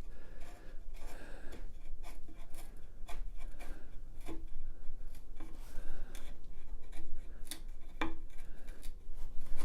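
A hand chisel paring pallet wood down to a line: a run of short, irregular scraping cuts and small clicks, with a sharper click about eight seconds in.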